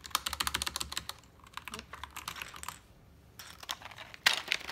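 Keys of a SteelSeries Apex Pro TKL keyboard clattering as they are pressed in a quick run for nearly three seconds, then a short burst of louder clacks near the end.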